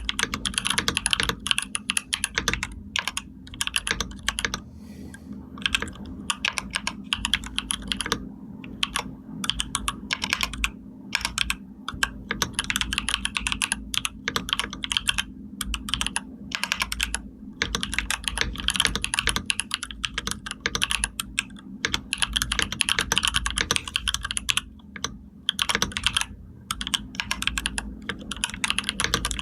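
Computer keyboard being typed on in fast runs of key clicks, broken by short pauses.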